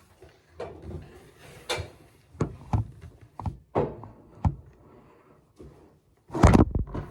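Irregular knocks and thumps of objects being handled and set down, with a louder cluster of thumps near the end.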